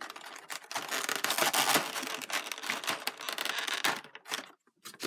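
Figure packaging being handled and opened: a dense run of crinkling and rustling with small clicks that thins out about four seconds in.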